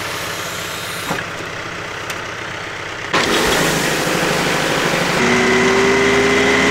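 Tractor engine running, throttled up about three seconds in to about 2,000 rpm to drive the PTO. About two seconds later a steady whine joins as the PTO shaft spins up the Kuhn GA 6501 twin rotary rake.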